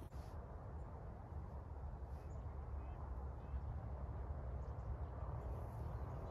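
Steady wind rumbling on the microphone, with a few faint, brief bird chirps.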